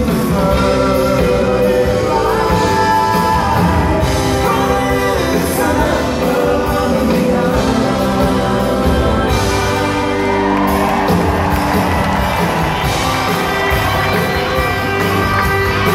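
Live rock band playing, with electric guitars, drums, keyboards and a lead vocal, heard from the audience in a large hall. Crowd whoops and shouts join in over the music.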